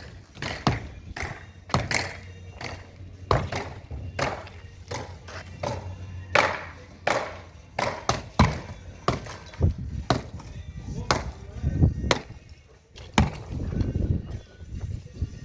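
Construction work: sharp, irregular knocks like hammer blows, about one or two a second, with a low steady hum underneath for the first half.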